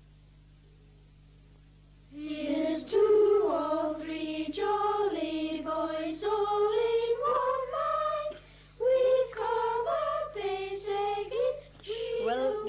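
High-pitched unaccompanied folk singing of a slow melody with held notes, starting about two seconds in after a faint steady hum. It breaks off near the end.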